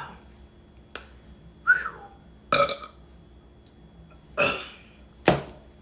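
A person eating, making five short mouth sounds spaced about a second apart: wet smacks and brief voiced, belch-like noises.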